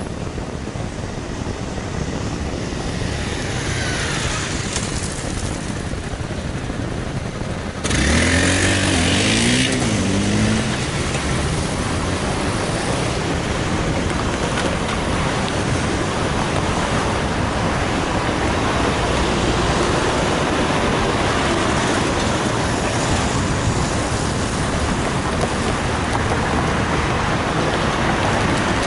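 Road traffic: cars driving across the level crossing and past on the road in a steady stream. The sound jumps suddenly louder about eight seconds in, with a briefly rising and falling engine note.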